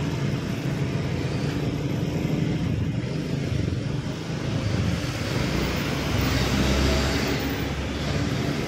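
Steady road traffic noise, with vehicle engines rumbling low.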